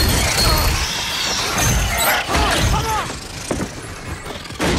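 TV-drama sound effects played as the show's soundtrack: a dense, loud mix of crashes and shrill rising-and-falling screeches, with a sudden loud hit near the end.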